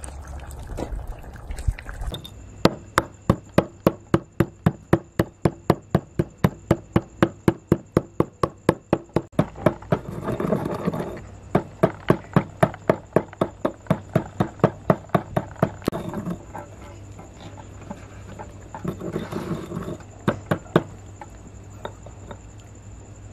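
Rapid, regular knocking, about three sharp strikes a second, stopping after about sixteen seconds and returning briefly near the end, over a faint steady high-pitched whine.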